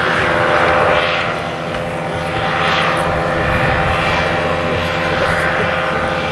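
Paramotor engine and propeller droning steadily, the sound swelling and easing every second or two.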